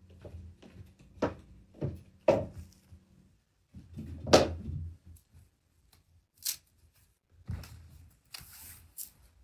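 Several footsteps on a wooden floor, about two a second, then a loud thump about four seconds in, followed by clicks and fabric rustling close to the microphone as the camera's surroundings are handled.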